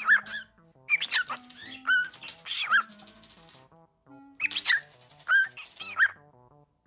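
Pet cockatiel singing in four bursts of quick, warbling whistled notes that rise and fall in pitch, over soft background music of single stepping notes.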